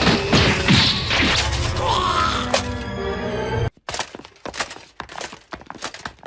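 Anime fight sound effects: blows and thuds over dramatic music. They cut off abruptly a little over halfway through, leaving quiet with scattered light taps.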